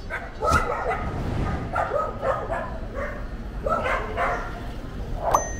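Dog barking several times in short, pitched calls.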